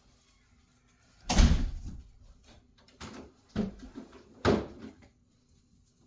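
Four heavy knocks and thumps, the loudest about a second in and the others coming in quick succession a little later.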